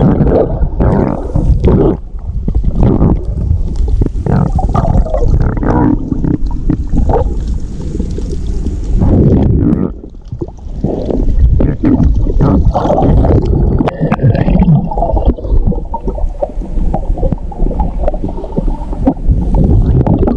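Water moving and bubbling heard underwater through a camera housing while snorkeling: a loud, muffled, low wash with irregular knocks and gurgles.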